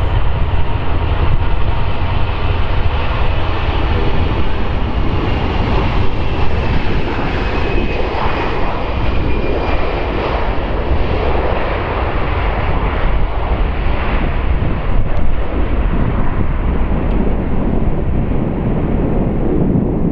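Airbus A340-300's four CFM56-5C4 turbofan engines at takeoff thrust on the takeoff roll: a loud, steady jet roar and rumble. A faint high fan whine falls slightly in pitch as the jet passes, and the sound dulls as it moves away.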